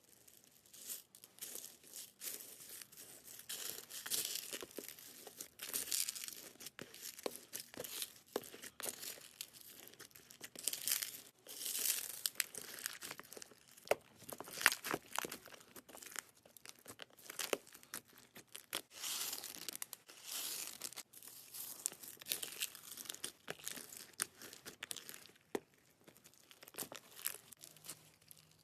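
Slime being squeezed, stretched and poked by hand, giving off dense, irregular crackling and popping.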